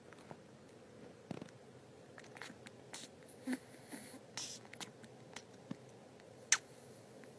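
Faint, scattered small clicks and soft rustles from kittens nuzzling against a person's face.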